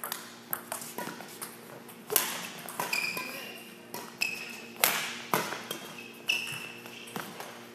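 Badminton rally: rackets striking the shuttlecock with sharp cracks every second or so, and short squeaks from court shoes on the floor between shots.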